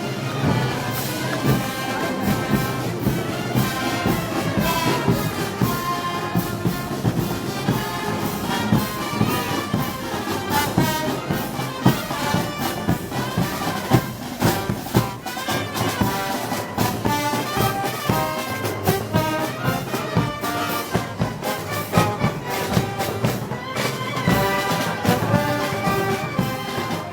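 Brass band playing Moros y Cristianos festival music: trumpets and trombones carry the tune over steady drum beats.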